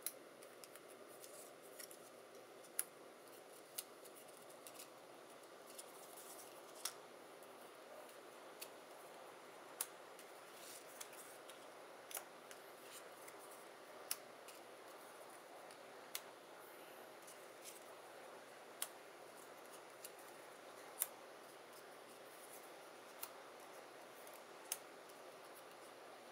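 Light, sharp clicks of die-cut cardstock pieces being picked up and set down on a cutting mat, one every second or so at an uneven pace, over faint room hiss.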